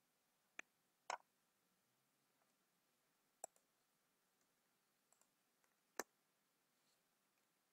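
A few sharp, isolated clicks of a computer mouse and keyboard over near silence. Four louder clicks come a second or more apart, with a few fainter ticks between them.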